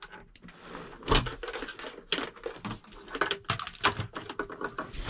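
Irregular clicking, knocking and rustling of things being handled, with a sharp knock about a second in and another at the end.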